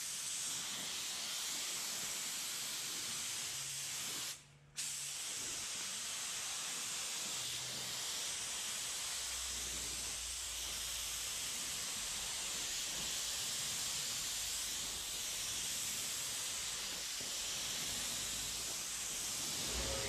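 Compressed-air paint spray gun laying down clear coat, set at about 24 PSI: a steady hiss of air and atomised clear. The hiss cuts off for about half a second about four and a half seconds in, then starts again for the next pass.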